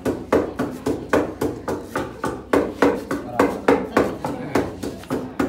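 Wooden pestle pounding in a mortar: steady, even thuds about three a second.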